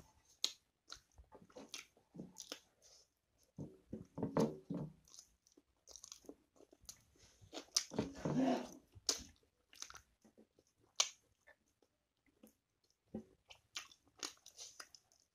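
Close-up chewing and mouth sounds of a person eating rice and chicken curry by hand, irregular wet smacks and clicks, with louder stretches about four and eight seconds in.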